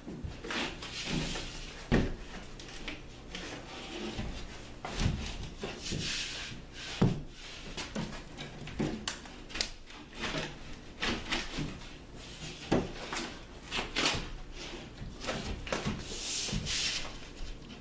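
A drywall panel being handled, cut and fitted: irregular knocks and thumps with spells of scraping and rasping.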